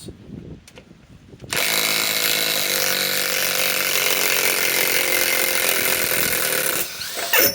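Flex FX1451 mid-torque cordless impact wrench hammering in reverse to back out a 6-inch lag screw. It starts about a second and a half in and runs steadily for about five seconds, then stops. A short loud noise follows near the end.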